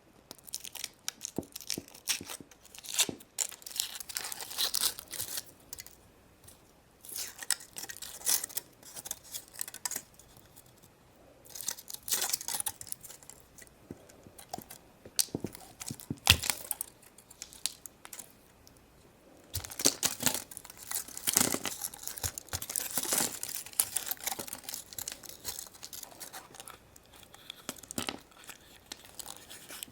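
Foil wrapping of chocolate surprise eggs being torn and crinkled open by hand, in bursts of crackling with short pauses and a few sharp clicks.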